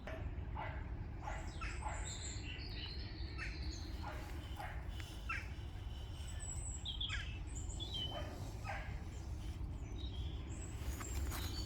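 Several birds chirping and calling in short, high notes, over a steady low rumble.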